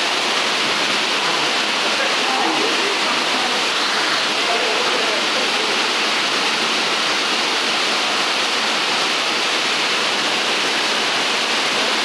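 Waterfall plunging into a rock pool, a steady, loud rushing of water.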